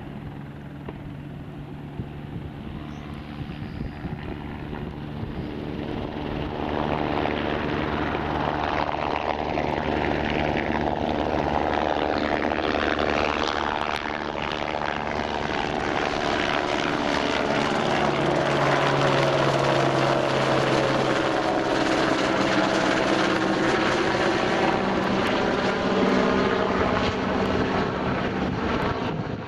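Single-engine light helicopter (AS350 Squirrel type) hovering and flying close overhead: a continuous running sound with several tones that slide in pitch as it moves, growing louder about six seconds in.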